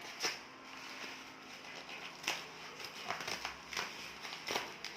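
Packaging being handled while a box is opened: a few separate sharp crinkles and taps, spaced irregularly about a second apart.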